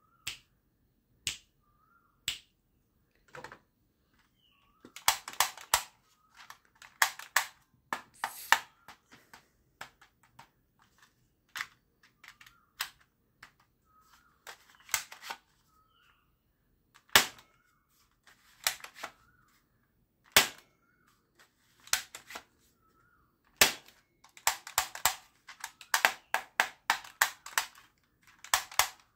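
Plastic toy guns being handled: sharp single clicks and rapid runs of plastic clacking, loudest in clusters about five, eight and twenty-five seconds in, as parts like the toy pump shotgun's fore-end are worked.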